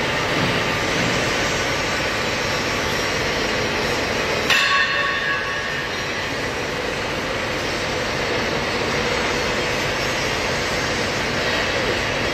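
Steady machinery noise, with one sharp metallic clang about four and a half seconds in that rings briefly.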